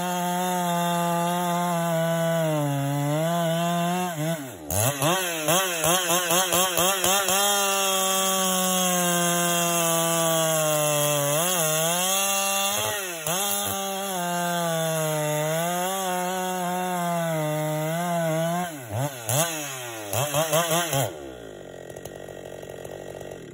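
G395XP two-stroke chainsaw running at high revs under load, as if cutting wood, its pitch sagging and recovering several times, with brief throttle pulses. Near the end the revs fall away as the throttle is released. The saw is being run hard despite the piston slap its owner suspects.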